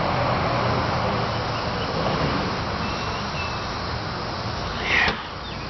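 Heat gun blowing steadily as it shrinks heat-shrink tubing over wire connectors, then switched off with a short loud burst about five seconds in, after which the noise drops away.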